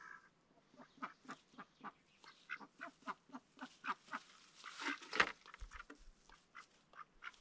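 Mixed-breed Indian runner ducks quacking in short, quick calls, about three a second, as they come out of their duck house. A louder, noisier burst comes about five seconds in.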